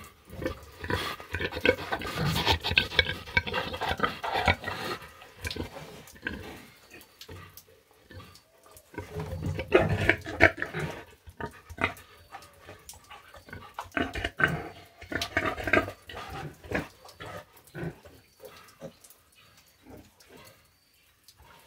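Pigs, a sow and her piglets, grunting in the pen, in three louder spells with quieter sounds between.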